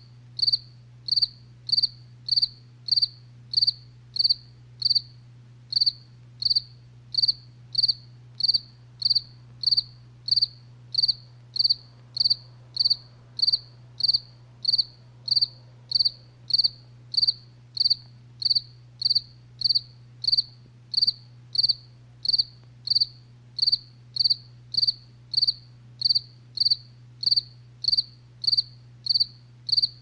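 A cricket chirping in short, high, evenly spaced chirps, about one and a half to two a second, over a faint steady low hum.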